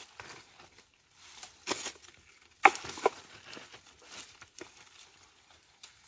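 Rustling leaves and crackling, tearing roots as a Korean angelica (danggui) plant is pulled from moist forest soil by hand, in several short bursts as the root gives way.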